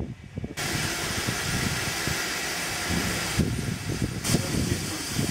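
Steam locomotive letting off steam: a loud, steady hiss that starts suddenly about half a second in and briefly thins near the end, over a low uneven rumble.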